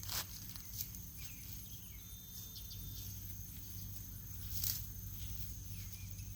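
Steady high-pitched insect chirring, with a few short scrapes and knocks of hands digging through garden soil, one louder near the end.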